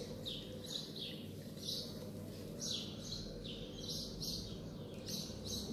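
Small birds chirping in the background: a run of short, high chirps, two or three a second, over a faint steady low hum.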